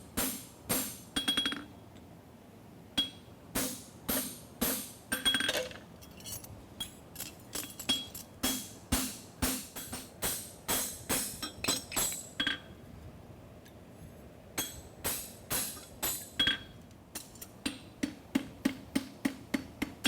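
Hand hammer striking a steel horseshoe on an anvil in runs of ringing blows, about one to two a second. There are short pauses about two seconds in and again near fourteen seconds.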